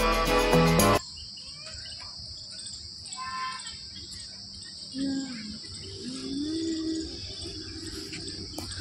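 Background music that cuts off suddenly about a second in, leaving a steady high-pitched insect chorus with faint voices now and then.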